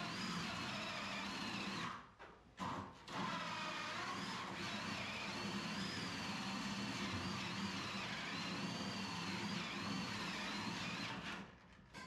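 Cordless drill boring an angled hole through a wood stud, the motor whining with its pitch wavering as the bit loads up. It cuts out briefly about two seconds in, then runs on steadily and stops near the end.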